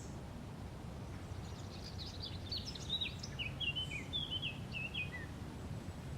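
A songbird sings one long phrase of quick, varied high chirps that starts about a second and a half in and ends on a short falling note, over a steady low background hum.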